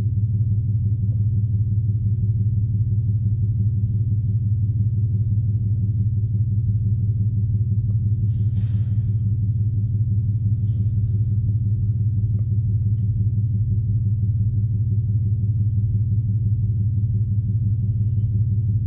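Steady low humming drone with a fluttering, rumbling texture, unchanged throughout, with two brief soft hisses about eight and eleven seconds in.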